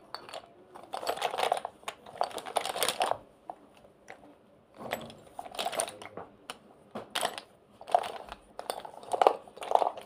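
Small makeup items and their cases being handled and rummaged through: clusters of clicks, clinks and rustling, with a short pause a little before the midpoint.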